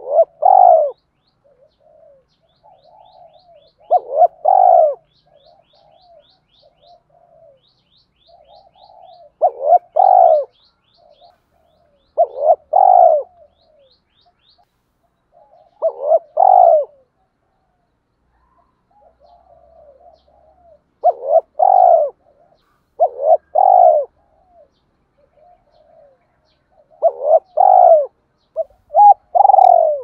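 Spotted dove calling: loud coo phrases every few seconds, coming faster near the end, with soft low coos in between. It is the dove's 'gáy' call with two ending notes, the call Vietnamese keepers use to lure wild doves.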